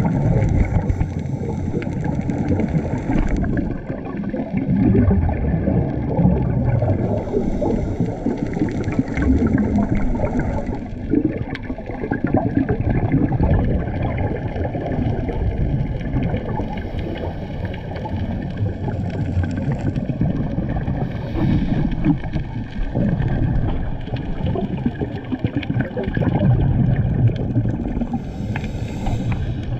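Muffled underwater sound picked up by a camera in its waterproof housing during a scuba dive: a low rumble with the gurgle of divers' exhaled regulator bubbles, swelling and fading every few seconds.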